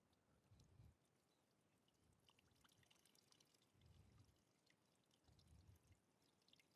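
Very faint water pouring and trickling as the SB300's radiator is flushed with clean water, with three soft low bumps.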